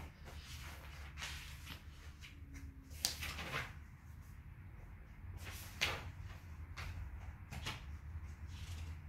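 Cardboard jigsaw puzzle pieces being picked up, slid and set down on a wooden floor: a handful of short scrapes and taps, the loudest about three seconds in and again near six seconds, over a low steady hum.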